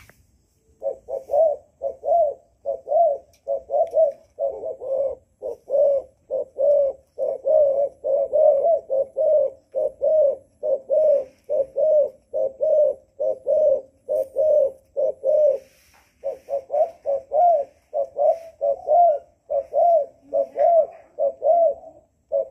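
Spotted dove cooing in a long run of short, repeated coos, about two a second, with one brief pause about two-thirds of the way through. This is the dove's challenge cooing at a second dove caged beside it, the keeper's test of whether the two will face off.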